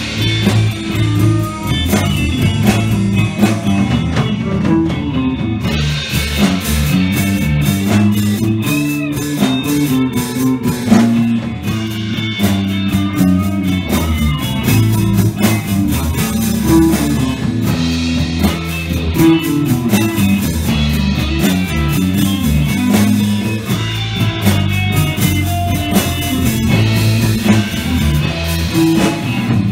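Live blues band playing loudly: electric guitar over bass guitar and drum kit, with cymbals ringing through most of it.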